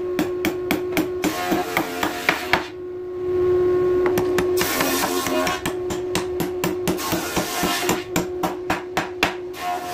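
Hammer striking the joints of a wooden door frame in quick, repeated blows, several a second, with a short break about three seconds in. A steady tone runs underneath.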